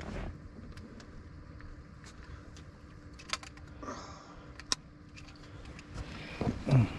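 Handling noise from a fish scale and fishing gear: scattered sharp clicks and clinks over a low steady rumble, with a louder bump near the end.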